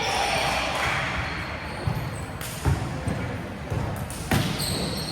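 Volleyball being struck and bouncing on a hard indoor court, a few sharp smacks with the loudest about two and a half and four seconds in, ringing in a large hall.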